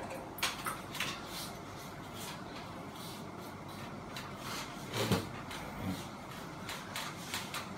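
Scattered clicks, taps and small knocks of ceiling fan parts being handled and fitted by hand at the motor housing, with the loudest knock about five seconds in.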